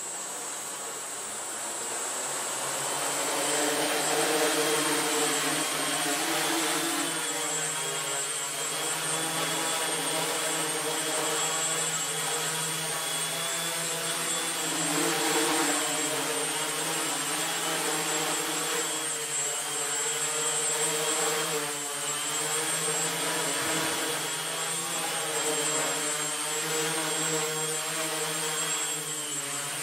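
Small MultiWii quadcopter's four electric motors and propellers buzzing as it hovers, growing louder over the first few seconds as it lifts off. The pitch keeps wavering up and down as the motor speeds change to hold the hover.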